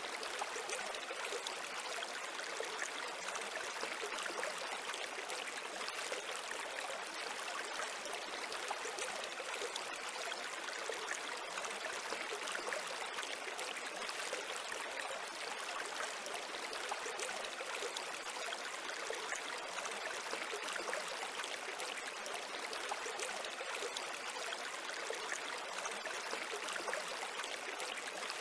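Running water, a steady trickle or babble of a small stream, with an even hiss and little low rumble.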